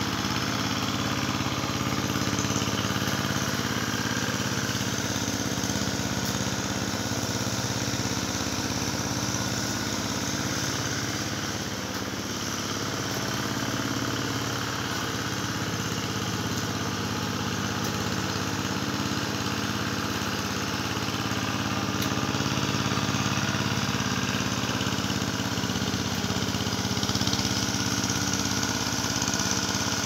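Small engine running steadily at an even speed throughout.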